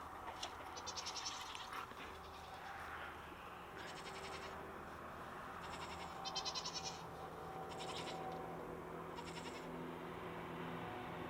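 Goats bleating: several short calls spread through a few seconds, over a steady low background.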